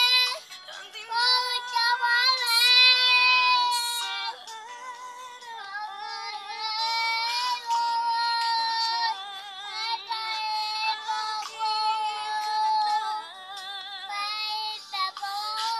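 A young boy singing a serenade-style song in a high voice, holding long notes with a wavering vibrato and pausing briefly between phrases.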